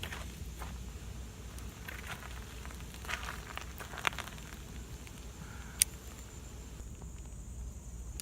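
Scattered light clicks and taps over a steady low hum, with a sharp click about four seconds in and the loudest one near six seconds.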